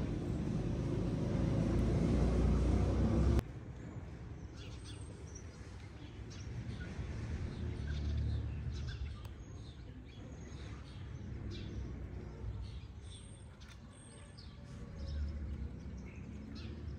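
Outdoor ambience: a loud low rumble for the first three seconds or so that cuts off suddenly, then a fainter rumble that swells and fades, with small birds chirping throughout.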